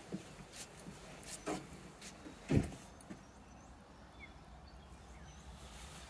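Footsteps thudding on a wooden deck as someone walks, the heaviest thud about two and a half seconds in, then quieter with a few faint bird chirps.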